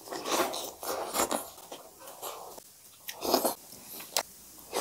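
Two people biting into and chewing hand-fed mouthfuls of makai dhido (cornmeal mush) with chicken curry, the wet eating noises coming in several loud bursts with sharp clicks.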